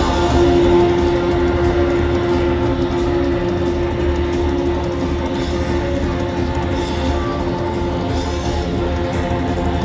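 Live rock band through a stadium PA, heard from within the crowd: distorted electric guitars and bass hold one loud, sustained chord, with a single guitar note ringing steadily on top.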